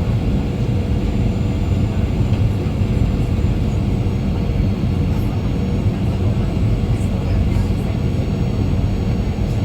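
Airliner cabin noise: the steady rumble of the jet engines and airflow heard from inside the passenger cabin.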